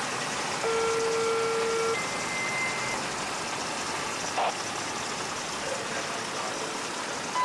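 Two-tone dispatch page over a radio scanner: a lower steady tone for just over a second, then a higher tone for about a second, over constant radio hiss.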